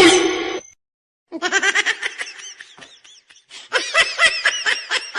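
A person laughing hard in rapid, repeated high-pitched bursts, strongest near the end, after a short loud vocal sound right at the start.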